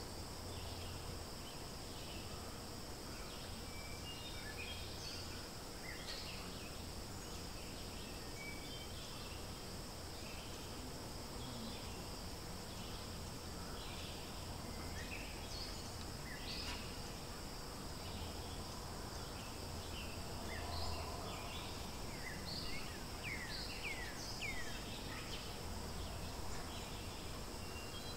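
Forest ambience: a steady high insect drone with scattered short bird chirps and calls, and a few quick sliding bird calls near the end.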